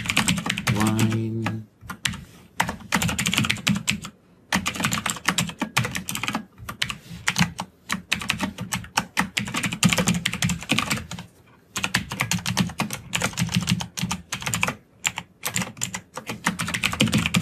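Fast typing on a computer keyboard: runs of key clicks broken by short pauses.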